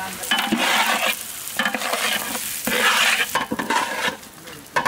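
A long metal spatula stirring freshly washed pulao rice into hot spiced fat in a large metal pot, the wet rice sizzling as it fries, in about three scraping strokes.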